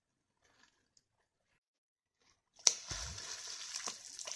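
A beaver slapping its tail on the lake surface: a sudden sharp smack about two and a half seconds in, followed by splashing for about two seconds as the water settles. The slap is the beaver's warning to the intruders.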